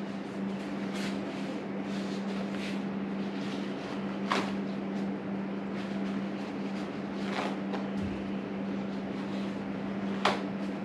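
A steady low electrical-sounding hum under a haze of background noise, with a few light clicks or knocks, a sharp one about four seconds in and another near the end.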